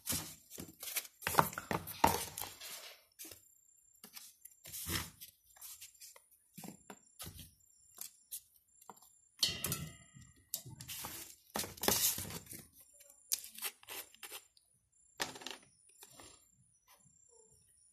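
Hands handling a cardboard box and strips of foam lining: irregular rustling, scraping and light knocks, with short quiet gaps between them.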